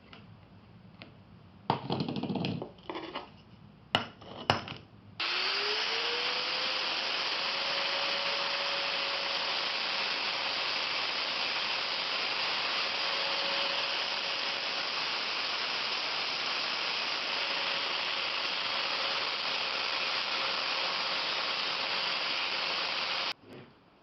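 An electric power tool spins up, runs steadily on the workpiece for about 18 seconds, then is switched off and cuts out suddenly. A few knocks and handling sounds come before it starts.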